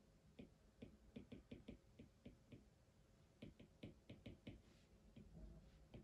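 Quiet, quick light taps in two runs: about nine from half a second in, then after a short pause about seven more, a few stray taps after.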